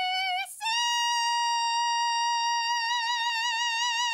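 Music: a single unaccompanied high note held out at the end of a musical number. It steps up to a higher pitch about half a second in and is then sustained, its vibrato widening toward the end.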